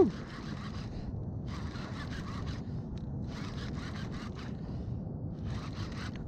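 Fishing reel rasping in four short bursts, about one every one and a half to two seconds, while a hooked fish is fought on the line. A brief, loud squeak falling in pitch comes at the very start.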